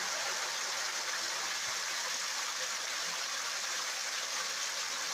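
Shower running: a steady spray of water falling.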